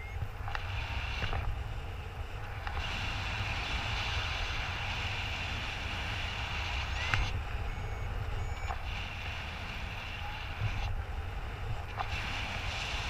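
Airflow buffeting the action camera's microphone during a paraglider flight: a steady low wind rumble with a rushing hiss. A few brief high chirps and beeps are heard, the clearest right at the start and about seven seconds in.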